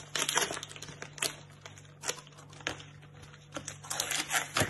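Plastic packaging of sliced chorizo crinkling and rustling as it is handled and cut open with kitchen scissors, with several sharp clicks and snips.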